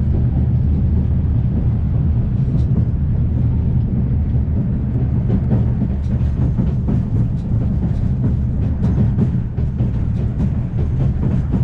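Interior rumble of the Afrosiyob high-speed train running at speed: a steady, deep, loud rumble, with light clicks and rattles that grow more frequent about halfway through.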